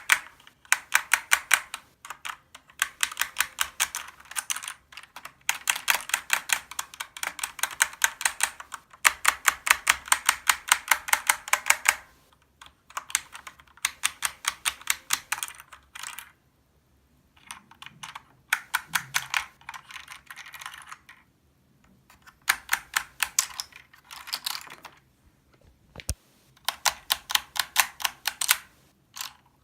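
Typing on a Corsair K70 Lux RGB mechanical keyboard: fast runs of crisp key clicks in bursts of a few seconds, broken by short pauses.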